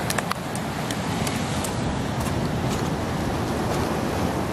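Steady rushing noise of ocean surf breaking on the rocks, mixed with wind, with a few light clicks near the start.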